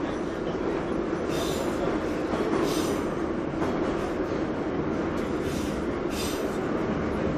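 Moscow Metro train running through the tunnel, heard from inside the carriage: a steady, loud rumble of wheels and motors. Short high-pitched screeches from the wheels on the rails cut in four times.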